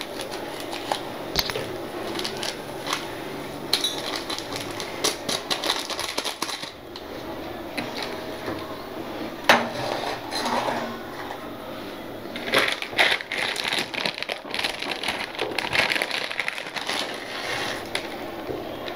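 Kitchen clatter: a slotted metal spatula stirring and knocking in a black iron kadai of boiling water as the masala powder is mixed in, with one sharp knock about halfway. Near the end, crackling as dry Maggi noodle cake is broken into the pan.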